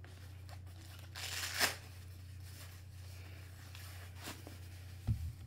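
A precision screwdriver kit case being handled and opened: a short rustling scrape about a second in that ends in a sharp click, and a few fainter clicks later.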